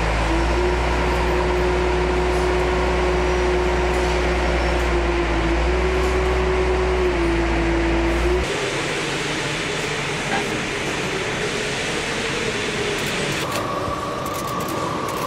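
Steady machine noise with a droning tone that shifts slightly in pitch. About eight and a half seconds in it changes abruptly to a different steady mechanical noise, and a higher steady whine joins near the end.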